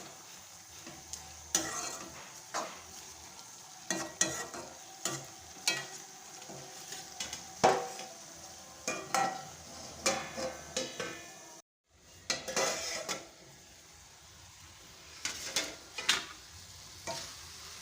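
A spatula scraping and knocking against a pan at irregular intervals while stirring a frying radish and potato mash, with a steady sizzle underneath.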